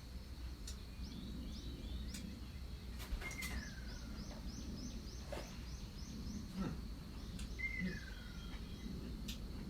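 Birds calling outdoors: a clear falling whistle twice, about four seconds apart, with a quick run of short high chirps between them. Under the calls there is a steady high thin tone and a low background rumble.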